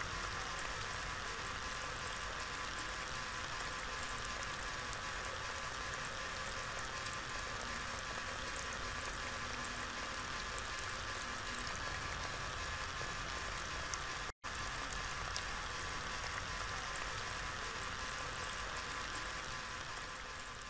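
A steady stream of water from a toy-sized, motor-driven model pump splashing onto wet soil and into a muddy puddle, with a steady higher hum running underneath. The sound cuts out for an instant about 14 seconds in.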